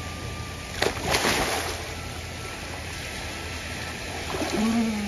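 A person rolls off the pool edge into a swimming pool: a sharp smack about a second in, then a splash and water sloshing that dies down within a second. A short vocal sound comes near the end, over a steady low hum.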